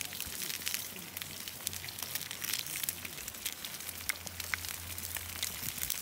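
Wood campfire crackling: irregular sharp pops and ticks over a soft hiss.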